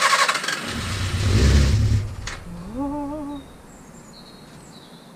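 Suzuki GS250FW motorcycle's electric starter cranking the engine, which then fires with a low rumble for about a second and a half and dies out about two seconds in, without catching. A short hummed tone follows.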